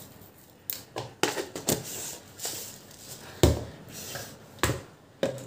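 Scattered sharp clicks and knocks of plastic kitchenware being handled: a measuring spoon and sugar tub against a plastic blender jar, with one heavier thump about three and a half seconds in.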